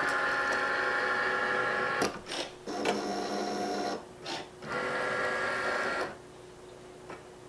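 Cricut Maker cutting machine running its carriage and roller motors, an electric whir in several runs of different pitch with short pauses between, as the pen carriage travels back and forth across the mat; it stops about six seconds in, with a faint click near the end.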